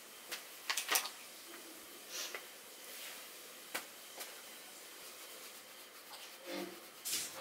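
Scattered light clicks and taps of small items being handled at a table, a cluster of them about a second in, then a short rustle near the end.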